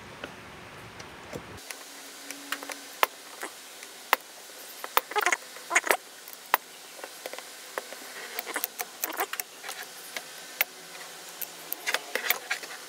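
Metal saw-chain links and small metal parts clicking and rattling irregularly as the chain and guide bar are handled and fitted onto an angle-grinder chainsaw attachment, with clusters of clicks about halfway through and near the end.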